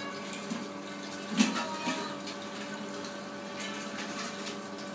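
A large pike conger thrashing in a steel bucket under a landing net: water splashing and sloshing, with a few knocks against the bucket, the loudest about a second and a half in. A steady hum runs underneath.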